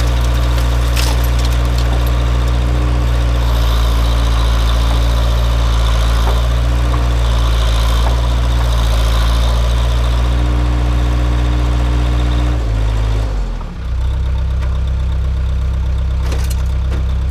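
Case 580 backhoe's engine running steadily. About thirteen seconds in, its speed drops and shifts, then it settles at a new steady note.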